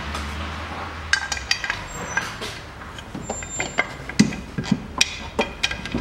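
Irregular metallic clinks and knocks as a metal engine-mount bracket and its bolts are handled and fitted with a socket tool, each tap with a short ring; they begin about a second in and come thicker in the second half.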